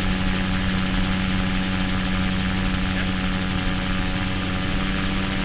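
Gyroplane in flight heard from inside its cockpit: the engine and propeller run at a steady pitch, a constant drone under a rush of wind noise.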